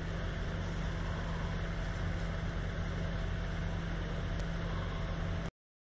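Wind blowing across a phone microphone during a windstorm: a steady low rumble with an even hiss over it, cutting off abruptly near the end.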